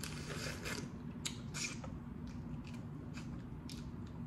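Boiled crawfish being peeled and eaten by hand: irregular small cracks and clicks of shell, with wet sucking and mouth sounds that are densest in the first second. A faint steady hum runs underneath.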